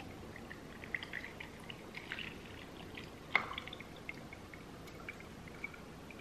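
Cocktail pouring from a stainless steel shaker through a fine-mesh strainer into a glass of ice: a faint, steady trickle with small drips, and one sharper clink about three and a half seconds in.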